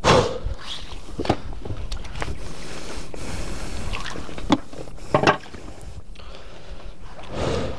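A few sharp knocks and clatters as a freshly caught fish and fishing tackle are handled against a boat's side, over a steady low rumble.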